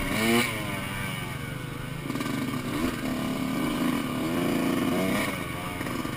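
2005 Kawasaki KX125 single-cylinder two-stroke engine with an FMF shorty pipe, revving up and down as the bike is ridden. The revs rise sharply at the start, ease off, and climb again about five seconds in.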